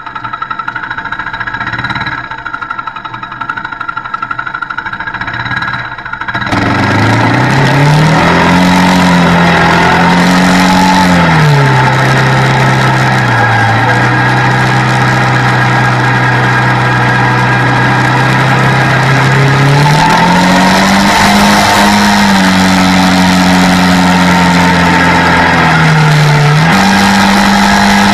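Quad (ATV) engine heard onboard while riding: after a quieter first six seconds it comes in suddenly loud, running under way with wind and road noise, its pitch rising and falling with the throttle and then holding steady while cruising.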